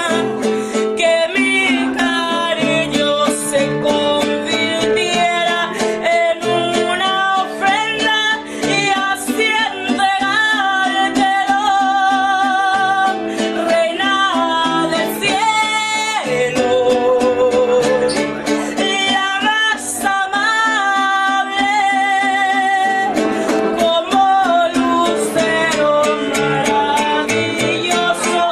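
A song: a singing voice with vibrato over plucked acoustic guitar.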